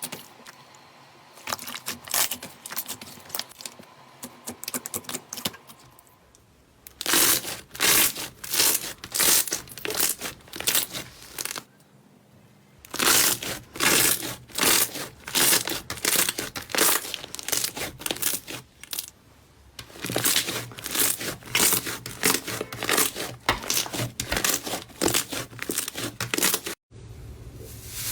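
Slime being squeezed and worked by hand, making rapid sticky clicks and pops. These come in three loud runs of several seconds each, after a quieter start.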